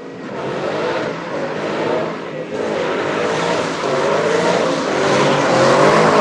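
Ford Mustang's engine revving hard, its pitch rising and falling in several pulls and getting louder toward the end.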